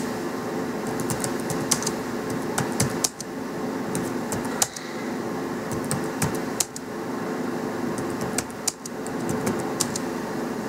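Typing on a computer keyboard: irregular key clicks with short pauses between bursts, over a steady low hum.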